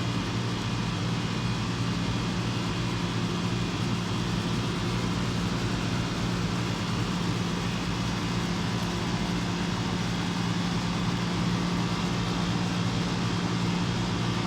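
Lennox central air conditioner outdoor unit running steadily: the compressor's even hum under the rush of the condenser fan.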